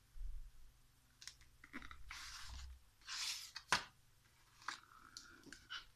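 A page of a hardcover picture book turned by hand: a soft bump of handling, then paper swishing for a second or two, with a sharp tap near the middle and a few small ticks after.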